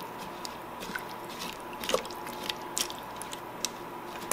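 Silicone spatula stirring chunks of sweet potato and parsnip in broth in a stainless steel Instant Pot insert: soft wet squelches and scattered light clicks, over a faint steady hum.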